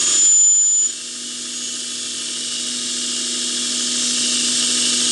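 Small drive-wheel machine running in reverse, a steady whine over a hum, with a thin high squeal in the first second. The sound drops off about a second in, then slowly grows louder.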